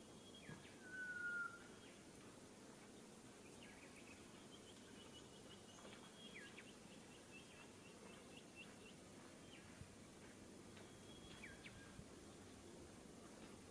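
Faint rufous whistler song over steady outdoor background noise. There is a short whistled note about a second in, a rapid run of short, high, repeated notes in the middle, and a few more notes near the end.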